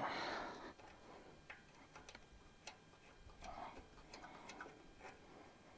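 Faint, irregular small metallic ticks and clicks from hands and a wrench working at a portable generator's carburetor float-bowl drain, with a short soft rush of noise at the start.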